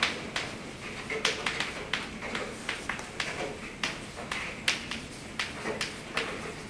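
Chalk writing on a blackboard: a run of sharp taps and short scratchy strokes at an uneven pace as a line of words is written.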